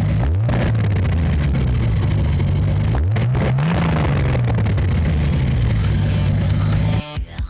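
Turbocharged Nissan L28ET inline-six breathing through a 3-inch exhaust with the silencer out, revved twice: each time the pitch climbs quickly and then falls slowly back toward idle. About seven seconds in, the engine sound cuts off and music with a beat begins.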